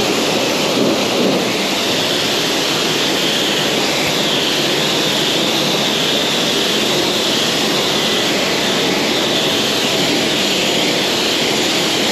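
High-pressure jet-wash lance spraying water onto a dirt bike: a steady, even hiss of the water jet.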